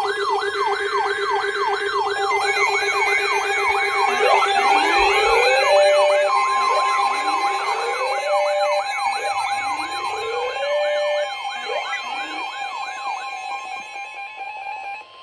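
Several electronic sirens sounding at once. A fast yelp sweeps up and down about three to four times a second, while slower wails rise and hold every couple of seconds. The sound eases off near the end and then cuts off.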